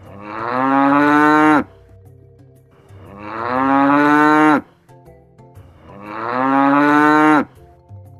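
A cow mooing three times, each moo a long call of about a second and a half that swells, rises a little in pitch and then cuts off.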